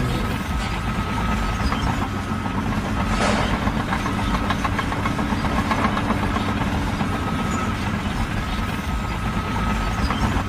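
A heavy engine running steadily with a low rumble, and a faint high whine that comes and goes.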